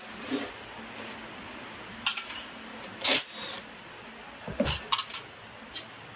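Sharp metal clinks and clatters of small engine parts and hand tools being handled and set down, with a short ringing tail after one loud clink about three seconds in and a quick cluster of clinks near the end. A faint steady hum runs underneath.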